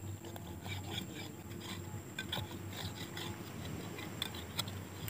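Scattered small clicks and scrapes of a hand groping inside a hole in rough coral rock, rubbing and knocking against the stone.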